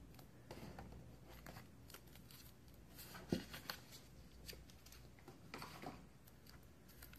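Faint handling noise of smartphones being moved about on a tabletop, with one light knock about three seconds in, over quiet room tone.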